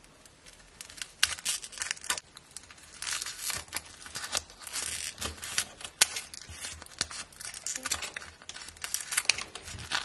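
Scissors snipping through a sheet of foam-bead slime (floam): dense, irregular crackling and crunching as the blades cut through the packed beads, with many sharp clicks.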